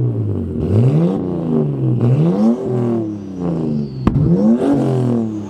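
Car engine revved repeatedly through its exhaust: the pitch climbs and falls back three times, with a single sharp crack about four seconds in.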